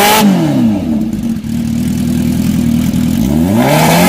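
Kawasaki H2R's supercharged inline-four being revved while stationary. It drops from a rev back to a steady idle, idles for about two seconds, then is revved again near the end, its pitch climbing.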